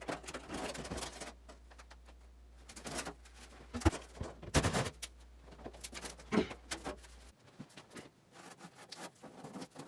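Sheet-metal furnace ductwork being handled: scattered scraping and rustling with a few sharp metallic knocks, the loudest about four seconds in. A steady low hum underneath cuts off suddenly about seven seconds in.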